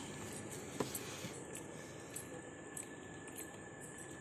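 Faint steady hiss with a thin high whine, and a sharp click about a second in followed by a few lighter clicks.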